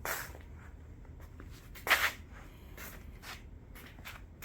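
Handling sounds: a few short scrapes and knocks, with one louder knock about two seconds in.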